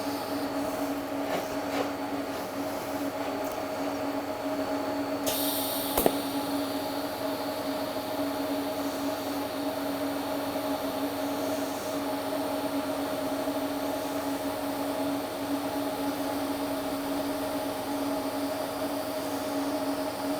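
TIG welder running during a fusion weld: a steady electrical hum with hiss, the high hiss rising about five seconds in and a single sharp click about a second later.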